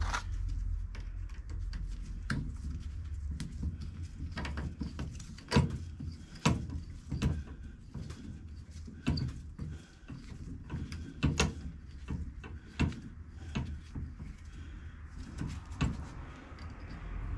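Irregular clicks and knocks of metal differential parts being handled and fitted together as the pin bolt goes back into a classic Mini cross-pin differential cage, over a steady low hum.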